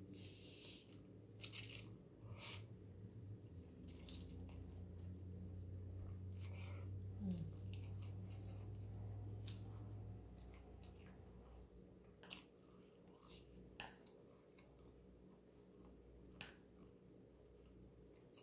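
Faint close-up eating sounds of Samyang spicy instant noodles: a slurp at the start, then chewing with wet mouth smacks and scattered small clicks.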